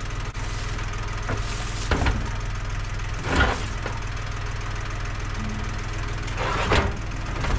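Compact tractor engine idling steadily, with a few short clunks and rattles about two, three and a half and near seven seconds in as the tote is being hooked up.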